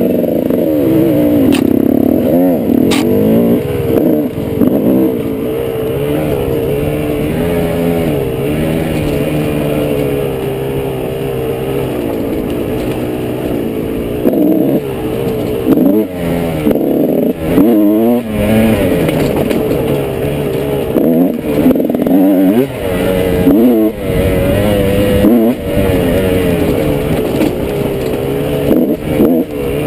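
Motorcycle engine running under way on a trail ride, its pitch rising and falling with the throttle. Repeated brief dips in the engine note come as the rider rolls off or shifts.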